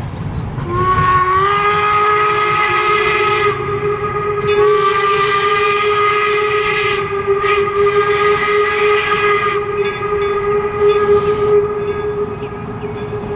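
A 4-4-0 steam locomotive's whistle blowing a long blast, its pitch rising as it opens. It falters briefly about three seconds in, then sounds again for several more seconds with a hiss of steam coming and going alongside it.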